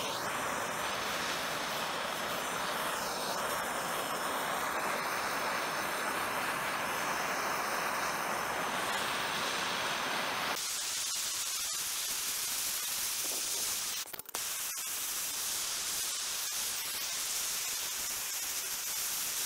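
Hand-held gas blowtorch flame blowing steadily as it heats small steel bolts, washers and a steel handle hoop to darken them. About halfway through the sound turns thinner and higher.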